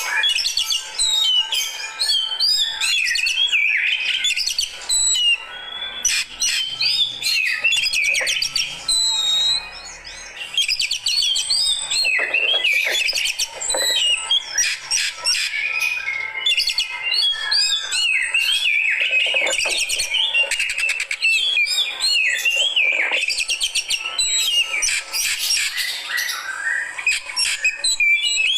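Oriental magpie-robin (kacer) singing a fast, varied, almost unbroken song of chirps, whistles and trills: the aggressive 'fighter' song of a bird roused to react.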